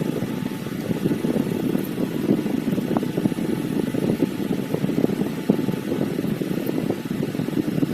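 A steady low rumble with a rough, crackly texture, like a machine or motor running in the background.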